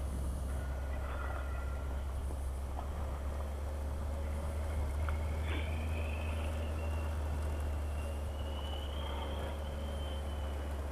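Motorcycle running along a gravel track: a steady, heavy low rumble with a faint whine that rises in pitch about halfway through.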